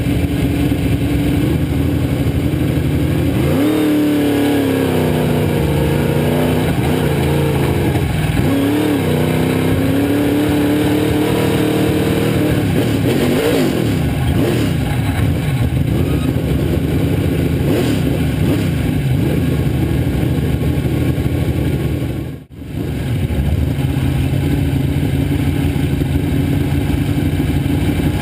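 Dirt modified's V8 engine heard from inside the cockpit, running at low speed. The throttle is blipped up and down several times in the first half, then the engine settles to a steady idle. The sound cuts out for a split second about two-thirds of the way in.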